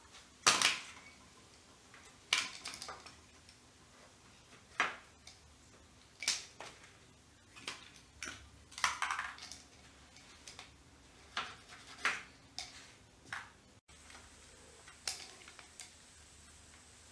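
Spline roller pressing a rubber spline and fibreglass mesh into the channel of an aluminium door frame, heard as short, irregular clicks and scrapes roughly every second.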